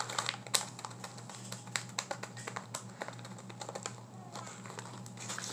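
Light, irregular tapping and clicking of fingers handling a plastic potato chip bag and its clip at the top of the bag.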